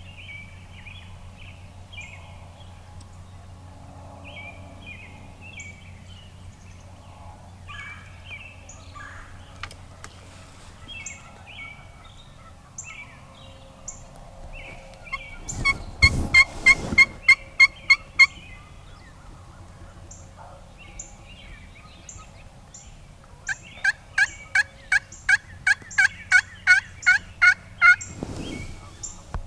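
Turkey yelps in two runs of loud, evenly spaced notes at about three a second: about eight a little past the middle, and a longer run of about seventeen near the end, made on a hand-held friction pot call. Faint bird chirps come before them.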